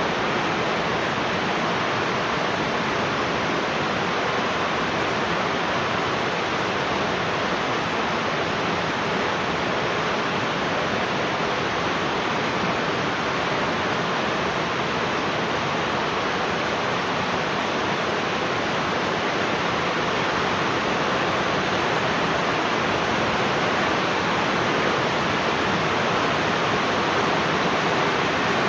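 Heavy rain falling as a steady, unbroken hiss that neither swells nor fades.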